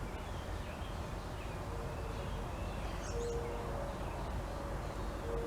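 Outdoor background: a steady low rumble with distant birds. Three short, level low notes and a few faint high chirps are heard.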